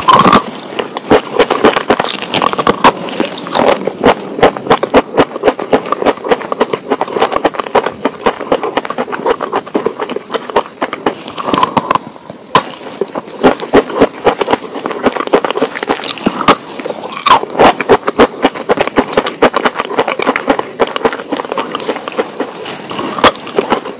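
Close-miked crunching: something brittle is bitten and chewed, giving dense crisp crackles and snaps with louder cracks among them.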